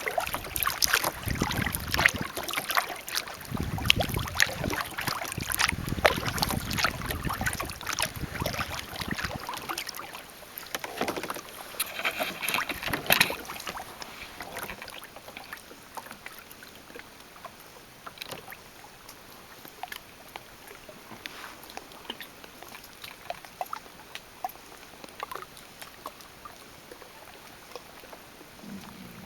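Kayak paddle strokes splashing and dripping in the water, busier and louder in the first half, then thinning to faint scattered drips.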